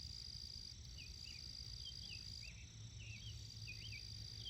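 Faint garden ambience: a steady high-pitched insect trill, with a bird's short chirps repeating every half second or so.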